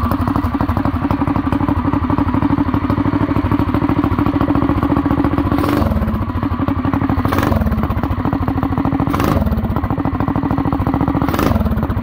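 Coleman RB200 mini bike's single-cylinder four-stroke engine running at a steady idle, with its Mikuni carburetor's mixture screw just set one turn out to lean a rich, sooty mixture. In the second half come four brief sharp sounds, each followed by a short dip in the engine's note.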